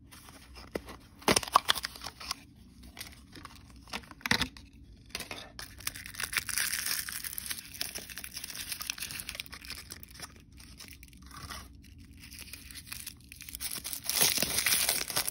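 Small plastic toy packaging being unwrapped by hand: a few sharp snaps and clicks in the first seconds, a long stretch of tearing and rustling plastic film a little over five seconds in, then loud crinkling of a wrapper near the end.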